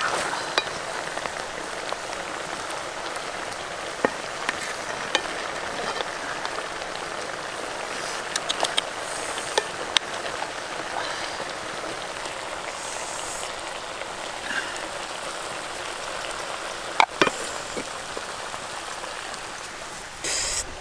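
Chicken curry with eggs and bamboo shoots simmering and sizzling in a pot, a steady hiss with occasional sharp clicks.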